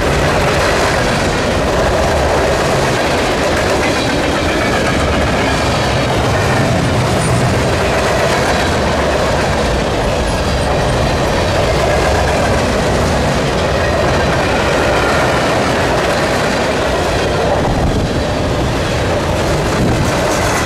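Railroad cars of a BNSF train rolling past, a loud steady rush of wheels on rail that does not let up.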